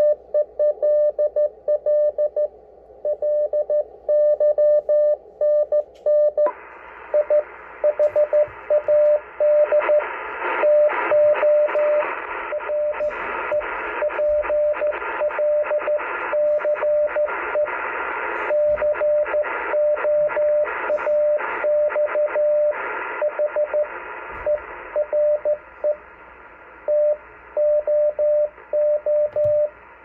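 Morse code sent on a straight key, heard as an Icom IC-718 transceiver's CW sidetone: a single steady tone of about 600 Hz keyed on and off in dots and dashes. It plays over receiver hiss, which becomes wider and brighter about six seconds in.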